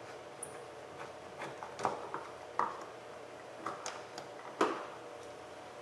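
Irregular small clicks and taps of hands and a screwdriver working at the plastic interior door trim panel of a Honda Accord, about eight in all, the loudest a sharper knock near the end, over a faint steady hum.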